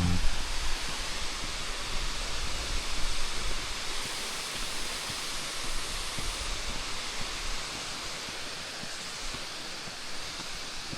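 Steady rush of water, a continuous even roar that eases slightly toward the end.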